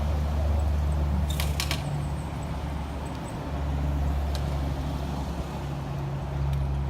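A motor vehicle's engine running steadily, with a few sharp clicks about a second and a half in.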